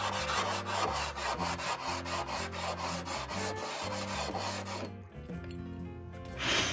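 Thermostat housing's gasket face rubbed back and forth on 80-grit sandpaper in quick, even strokes, lapping it flat so it will seal. The sanding stops about five seconds in, with one more short scrape near the end.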